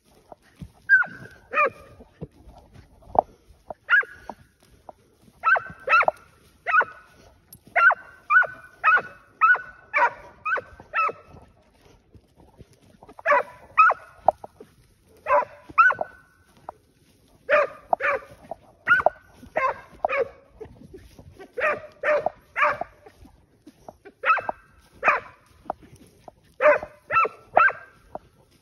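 A scent hound on a tracking lead barking repeatedly, in runs of several quick barks with short pauses between them: giving tongue as it follows a wild boar's scent trail.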